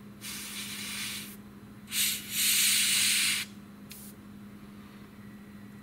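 Airbrush spraying paint in short trigger bursts: a hiss of about a second, a brief puff about two seconds in, a louder hiss of about a second, and a short puff near four seconds. A steady low hum runs underneath.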